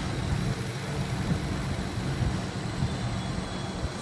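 Ramato 40 mm drilling-milling-tapping machine running steadily, its motor and belt-pulley drive giving a low, even hum with no cutting heard.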